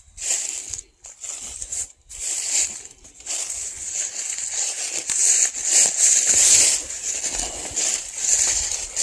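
Footsteps crunching and rustling through dry leaves and undergrowth, in separate steps for the first few seconds, then near-continuous.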